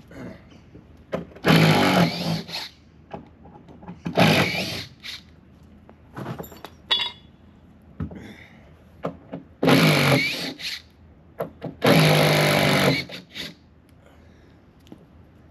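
Power drill running in four short bursts of about a second each, with small knocks of handling between them.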